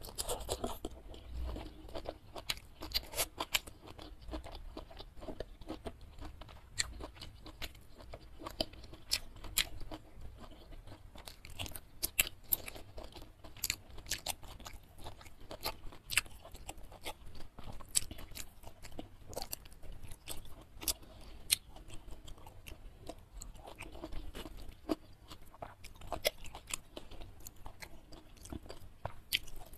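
Close-miked chewing and crunching of food, with many sharp, irregular wet mouth clicks.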